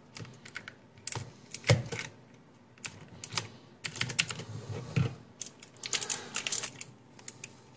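Irregular clicks and clacks of a mechanical keyboard's keys and plastic parts being worked by hand while it is taken apart, coming in uneven clusters that are busiest in the second half.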